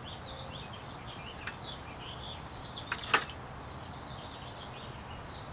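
Quiet hand handling of pounded yucca leaf fibers as strands are pulled apart, with a couple of short sharp clicks, the louder one about three seconds in. Faint chirping runs in the background.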